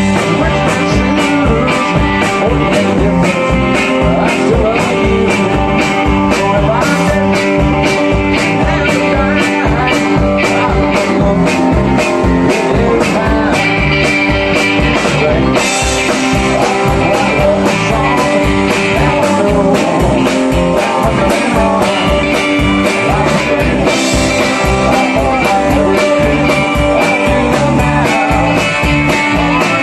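A live blues-rock band playing: electric guitar, electric bass and drum kit, with a steady beat.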